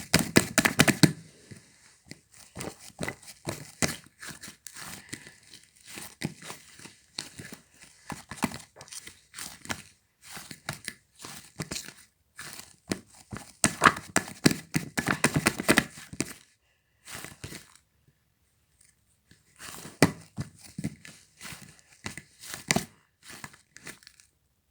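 A dumpling-shaped squishy toy being squeezed and pulled in the hands, giving crackly, crinkling, tearing sounds. The sounds come in dense bursts separated by quieter stretches, with a short pause a little after the middle.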